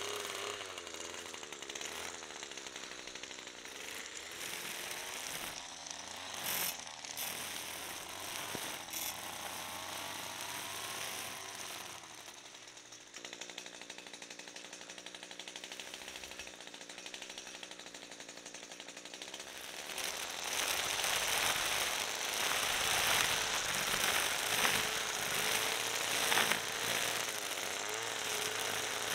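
String trimmer running, its spinning line whipping through thick grass with a rapid rattle while the motor's pitch wavers. Midway it settles to a quieter, steadier hum for several seconds, then the cutting grows louder and harsher near the end.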